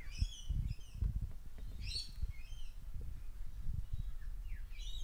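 Birds calling in short chirps, a cluster near the start and another about two seconds in, over an uneven low rumble.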